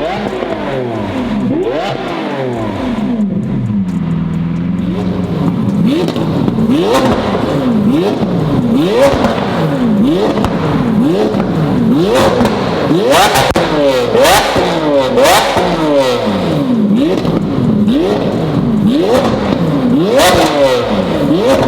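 Lamborghini Aventador SV's V12 engine and exhaust being revved again and again, the pitch climbing quickly and falling back about once a second. About four seconds in it settles briefly near idle. From about six seconds on it gets louder, with sharp crackles and pops as the revs drop.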